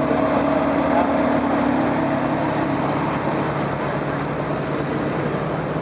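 Several Ferrari V8 engines idling together at close range, a steady even note that holds without revving.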